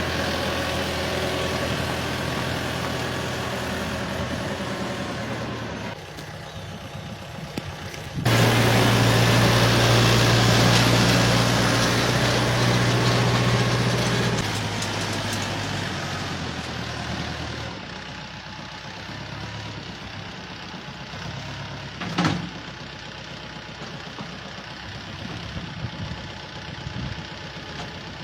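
An engine running steadily. About eight seconds in it suddenly gets much louder for around six seconds, then eases back down to a lower, steady run.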